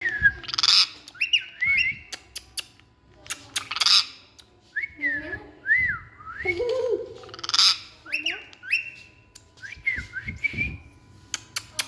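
Pet parrot calling: loud harsh squawks about every three and a half seconds, with short whistled rising and falling notes between them.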